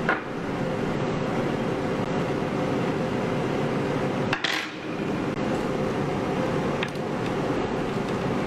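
A few light clicks and taps of small phone parts and tools being handled during an iPhone X repair, over a steady background hiss and hum; the sharpest click comes about halfway through.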